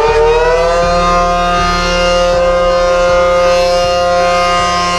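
American Signal T-128 outdoor warning siren rising in pitch for about the first second, then holding a loud, steady wail.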